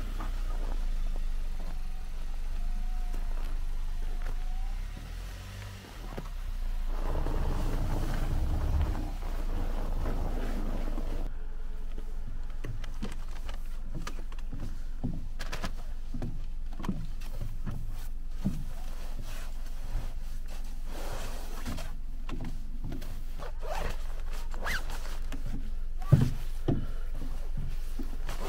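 An SUV's engine running as the car pulls in slowly. Then comes a long run of short clicks, knocks and rustles as camping gear is unloaded and carried, with one sharp thump near the end and a zipper being worked on a nylon gear bag.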